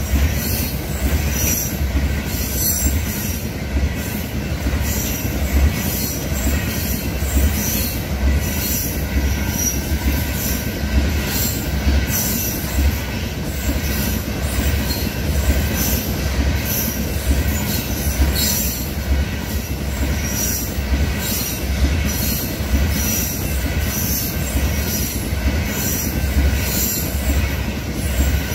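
Canadian Pacific freight train cars rolling past on the rails: a steady low rumble of wheels and cars, with a high screech from the wheels that swells and fades over and over.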